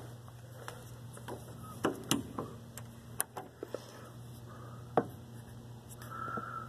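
A handful of sharp clicks and knocks, the loudest about five seconds in, over a steady low hum.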